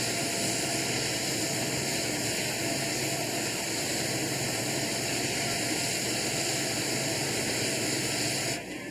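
Computer-controlled dual-side sanding machine running as hard rock maple veneer sheets are fed through it: a steady hiss over a low hum. The sound drops and changes near the end.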